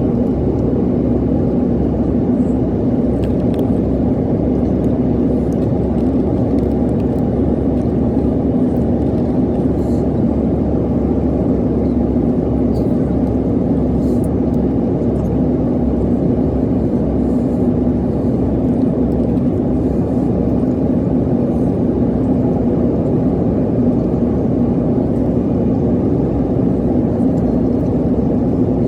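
Airliner cabin noise inside an Airbus A330 in flight: a steady low drone of engines and airflow with a constant hum.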